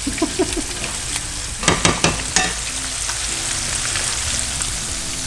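Yellowtail snapper fillets frying skin-side down in hot avocado oil in a nonstick pan: a steady sizzle, with a cluster of four sharp pops about two seconds in.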